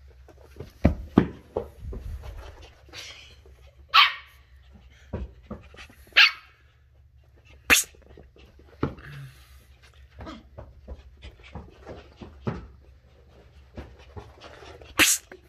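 Shetland sheepdog puppy giving short, high-pitched yaps, about four of them spread apart, with scattered knocks and bumps in between.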